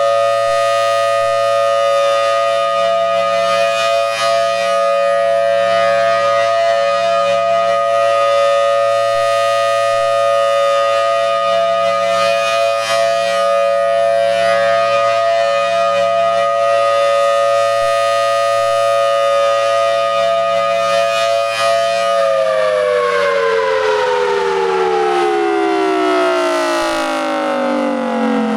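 Federal Signal Thunderbolt 1000T outdoor warning siren sounding the steady Alert signal, a loud held two-tone chord. About three-quarters of the way through it begins winding down, the whole chord sliding steadily lower in pitch as the rotors slow at the end of the alert.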